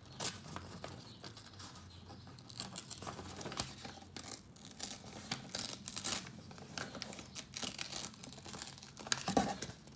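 A sheet of paper being torn by hand into a rectangle, with irregular short rips and crinkles as it is pulled and handled.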